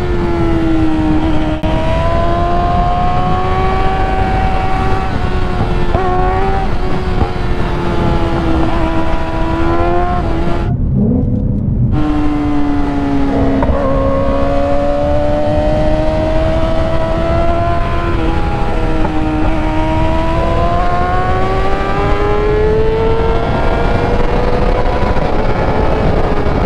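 A performance engine held at high revs under hard running, its pitch drifting slowly up and down, over a steady rush of wind. A little before halfway the engine note drops out for about a second, then comes back.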